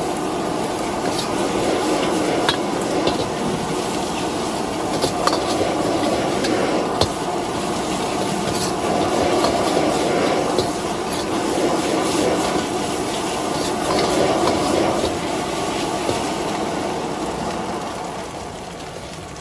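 Street-stall wok stir-frying, likely fried rice noodles: a steady rush of the wok burner and sizzling food, with the metal spatula clacking and scraping against the wok many times. The sound eases off slightly near the end.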